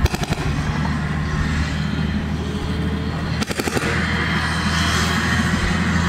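A heavy vehicle's engine running steadily under load, with two short bursts of rapid gunfire, one just after the start and one about three and a half seconds in.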